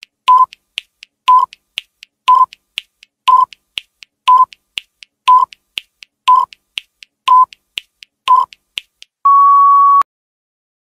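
Countdown timer sound effect: a short beep once a second with fainter ticks between, nine times, then one longer steady beep as the countdown reaches zero.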